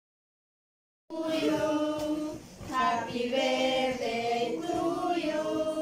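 Silence for about a second, then the sound cuts in suddenly on a group of voices singing a birthday song together to the person at the cake.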